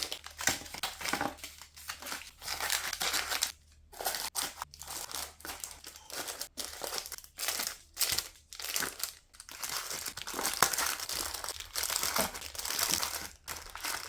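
Plastic snack packets crinkling in short, irregular bursts as they are handled and set into storage drawers.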